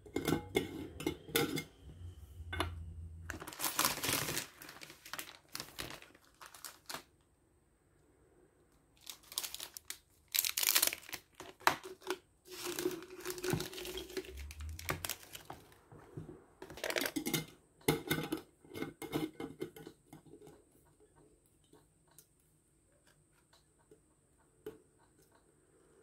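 Plastic snack wrappers crinkling and tearing as Pocky packets are opened, with the thin biscuit sticks clinking against a glass jar that has a metal screw lid. The handling comes in several bursts, then goes quiet for the last few seconds.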